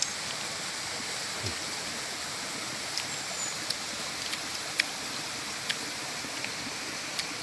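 Steady rushing of flowing water from a forest stream, with a few small sharp clicks scattered through it.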